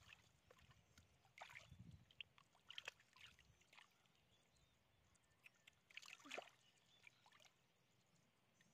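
A few faint, scattered splashes and squelches of hands groping through shallow muddy water.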